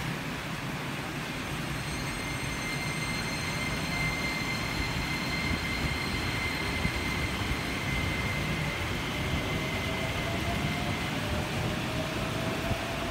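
Keikyu 2100 series eight-car electric train pulling away from the platform: a steady high electrical whine from its traction equipment, then from about nine seconds in a lower motor tone rising in pitch as it picks up speed, over the hiss of steady rain.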